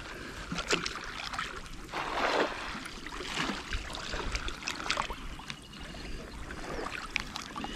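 Water splashing and sloshing in small irregular splashes, with a louder rush of water about two seconds in.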